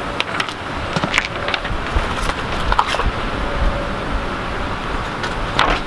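Uneven low rumble of wind on the microphone, with scattered light clicks and rustles from handling.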